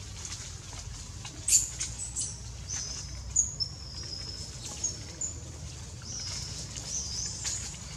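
A string of short, high-pitched animal chirps and squeaks, some sliding in pitch, with brief crackles of twigs and leaves and a steady low rumble underneath.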